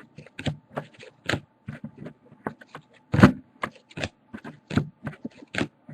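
Trading cards being handled and flipped through: quick, irregular scrapes and flicks, several a second, with a louder one about three seconds in.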